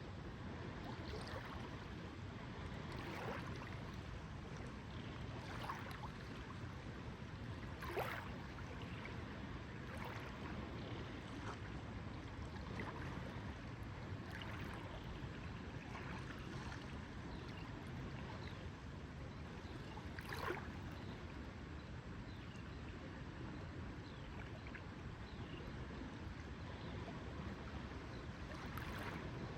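Small lake waves lapping, with short watery slaps every second or two over a steady low rush. Two slaps, about eight and twenty seconds in, are louder than the rest.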